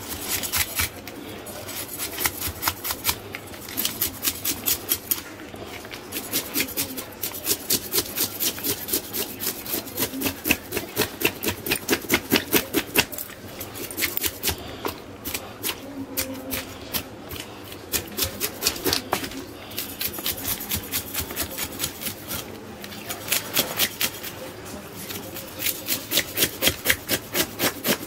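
Knife blade scraping scales off a reef cod on a wooden cutting board, rasping strokes in quick runs of about three a second with short pauses between runs.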